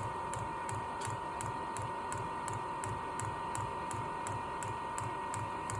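Diesel air heater's fuel dosing pump ticking steadily, about four clicks a second, as it primes the fuel line and pushes air out, over a steady high hum from the heater running.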